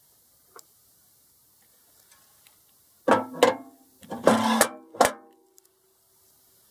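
Stainless steel grater disc of a Nihon Chouriki VA-20 vegetable cutter clanking and ringing as it is fitted onto the drive shaft and its centre knob put on. About three seconds in there is a quick series of metallic knocks. The last knock leaves a ringing tone for about a second.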